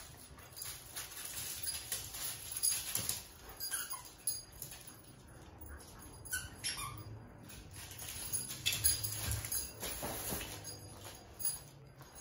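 Husky playing with a plush toy on a tiled floor: claws clicking and pattering on the tiles, the toy rustling and being chewed, with a few short high squeaks a few seconds in.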